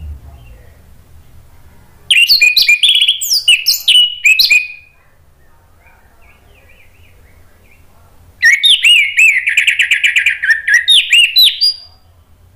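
Orange-headed thrush singing two loud phrases of rapid, varied whistled notes, the first about two and a half seconds long and the second about three and a half seconds, with a pause of several seconds between them.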